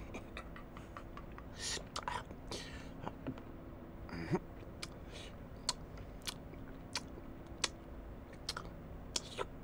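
Eating sounds: chewing with wet mouth clicks and smacks coming at an irregular, unhurried pace over a faint steady hum.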